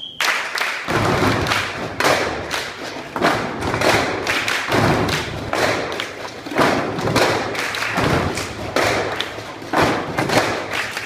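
A group drumming on cans, a dense run of thuds and knocks that starts just after a short whistle-like tone and keeps going.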